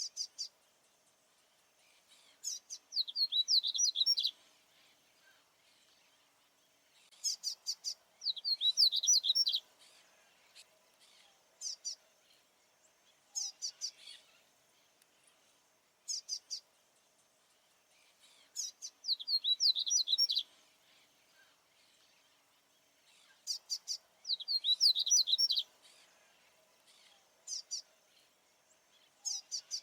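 A male papa-capim baianinho seedeater singing: repeated song phrases about every five seconds, each opening with a few short notes and going into a quick warbling run of high notes. Its singing is the male's territorial song.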